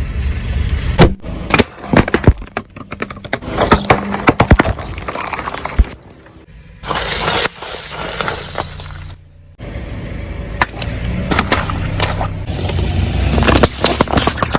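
Objects crunching and cracking under a car's tyres, with many sharp snaps over the low rumble of the car. Several short clips are cut together, so the sound stops and restarts abruptly a few times.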